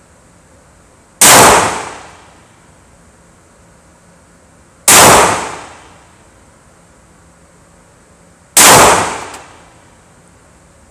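Three slow, deliberate shots from a Taurus PT111 G2 Millennium 9mm pistol, about four seconds apart. Each is a sharp crack with a short echoing tail off the indoor range's walls.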